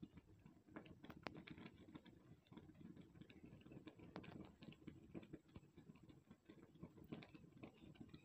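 Faint, irregular scuffing and clicking of kittens' paws and claws moving on a gritty concrete floor, with a couple of sharper clicks about a second in and about four seconds in.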